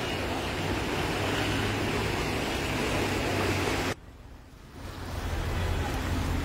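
Steady rushing and swishing of floodwater churned by vehicles wading through a flooded street. The noise drops away suddenly about four seconds in and swells back over the following second.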